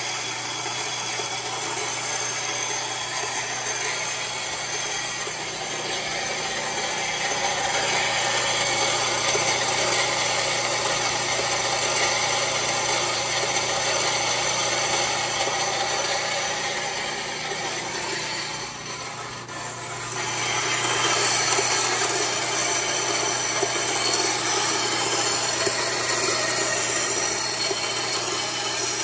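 Band saw running with a carborundum (silicon carbide grit) blade grinding through a thick borosilicate glass beaker, a steady grinding noise over the motor's hum. The grinding dips briefly about two-thirds of the way through, then picks up again.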